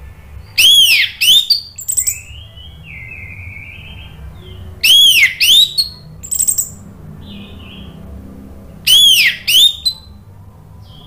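Orange-headed thrush singing: three loud phrases about four seconds apart, each made of two or three high, arching notes that rise and fall, with softer scratchy notes in between.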